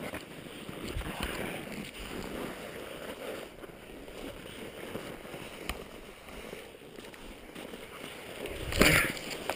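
Skis scraping and sliding slowly over hard, wind-packed snow, with a louder scrape near the end.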